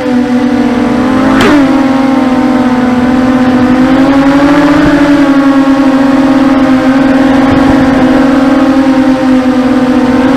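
Brushless motors and propellers of a 250-size FPV racing quadcopter whining steadily in flight. The pitch jumps sharply and drops back about a second and a half in, then rises and falls gently a few seconds later as the throttle changes.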